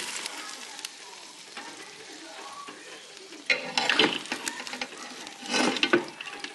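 Kitchen cooking sounds: a steady sizzling hiss, with two short spells of utensils clattering against cookware, about three and a half seconds in and again near the end.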